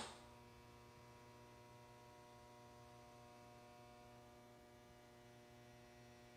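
A sharp click, then a faint, steady electrical hum with many evenly spaced overtones.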